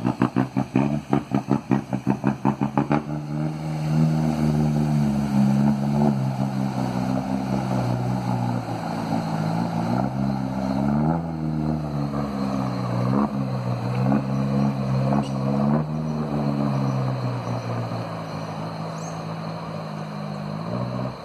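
Ford Ranger 3.0 4x4 pickup engine running on a straight-through exhaust with no muffler. For the first few seconds it puts at a slow idle, each exhaust pulse separate and loud. It then settles into a steady drone with a few short revs around the middle, a sound its owner calls "muito bonito".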